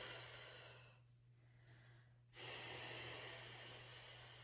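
A woman breathing hard through a core exercise. One long breath trails off in the first second, and another starts abruptly a little past two seconds in and fades slowly.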